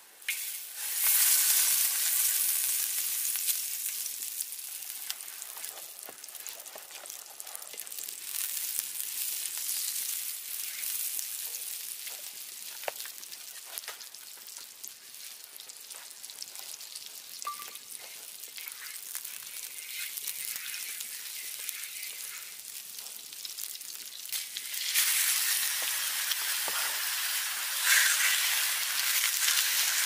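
Fat sizzling in a steel wok-style pan over a wood fire, stirred with a wooden spatula. The sizzle starts loud about a second in, fades slowly, then grows loud again near the end as diced meat is frying in the pan.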